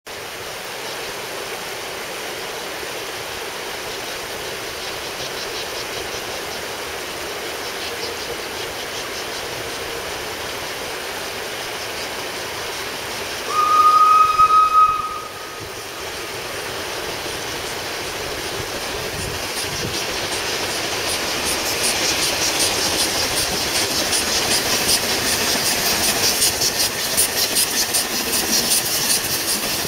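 Two narrow-gauge steam locomotives, Palmerston and Taliesin, double-heading a train on the Ffestiniog Railway. A steam whistle sounds once for about two seconds near the middle, the loudest sound here. From about two-thirds of the way in, the rhythmic beats of their exhaust grow steadily louder as they draw near.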